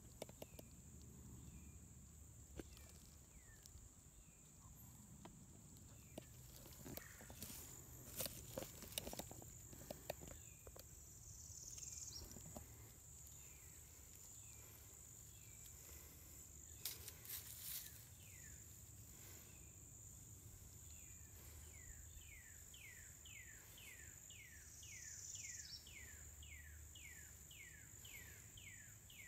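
Faint outdoor ambience: a steady high insect drone, with a few light clicks and rustles. Near the end comes a quick run of falling chirps, about two a second.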